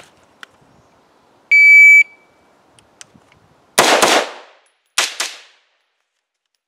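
Shot timer's start beep, one half-second high tone, followed about two seconds later by AR-15 rifle shots fired in two quick groups about a second apart.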